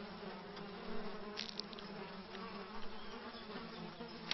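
Biting insects buzzing around the harpy eagle nest: a steady, wavering drone of wingbeats. A few short clicks come about a second and a half in, and another at the end.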